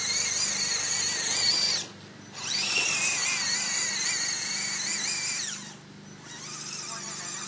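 Electric drive motor and gearbox of an Axial SCX10 RC crawler whining under throttle as it drives through mud. The whine cuts out briefly about two seconds in and again about six seconds in, then climbs back in pitch each time the throttle is reapplied.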